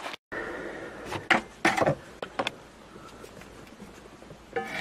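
Handling noise of a camera being moved: a few short knocks and rustles over a low steady background.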